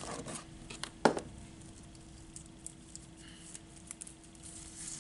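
Small clear plastic storage box being handled: a few light plastic clicks, one sharp snap about a second in, then faint light tapping and rustling.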